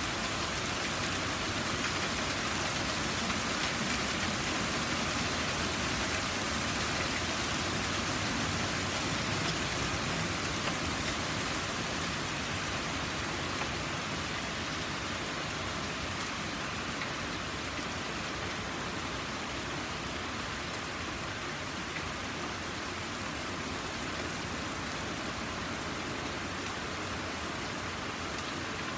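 Heavy rain falling steadily on a lawn, paved path and wet wooden deck, with scattered drops pattering nearby; it eases slightly about halfway through.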